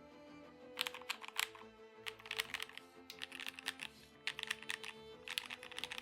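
Typing on a mechanical keyboard: quick runs of key clacks in several bursts with brief pauses between them, over soft background music.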